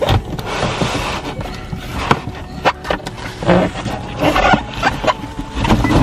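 Cardboard box and styrofoam packing being handled as an appliance is pulled out of its box: rustling, scraping and a run of irregular knocks and crinkles.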